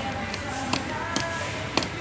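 Three or four sharp clicks from a desk fan's control switch being worked by hand, over steady background music.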